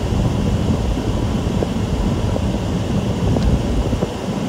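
Gusty wind buffeting the microphone from a car driving down a rain-wet street, heard as an uneven low rumble mixed with road noise.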